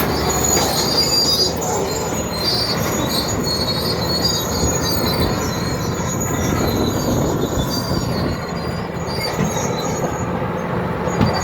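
Komatsu D80A crawler bulldozer working, its diesel engine running steadily under load while its steel tracks squeal and clank.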